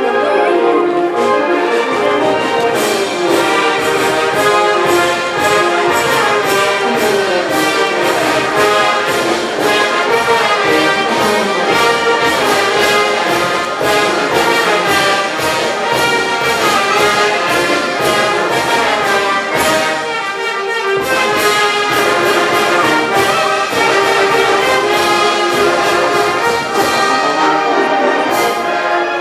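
Brass band playing dance music, with trumpets and trombones over a steady drum beat. The low notes drop out briefly about two-thirds of the way through.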